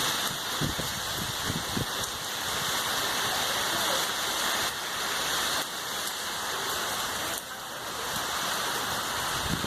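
Heavy rain falling steadily, a dense hiss with occasional low drips or thuds of drops on a surface.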